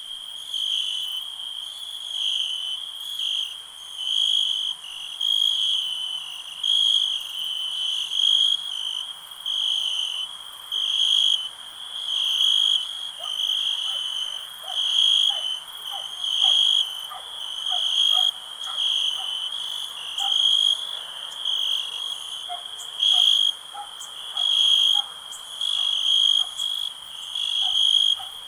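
Crickets chirping in a steady high-pitched rhythm, a little more than one pulse a second. From about halfway through, fainter short calls sound lower down.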